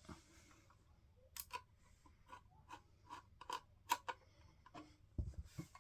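A screw being turned by hand into the power supply's metal bracket: a run of faint small clicks, roughly two or three a second, then a low thump near the end.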